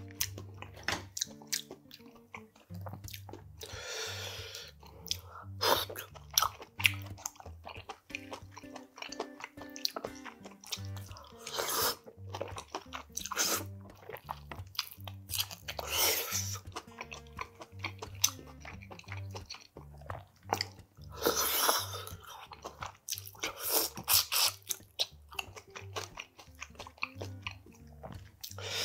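Close-miked eating of spicy steamed monkfish: wet chewing and small bites, with several louder slurps of sauce from a bowl, over soft background music.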